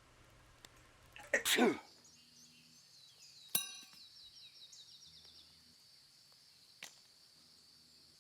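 A person sneezing once, loudly, about a second and a half in. A sharp click with a short metallic ring follows about two seconds later, and a faint high steady whine with small chirps runs underneath.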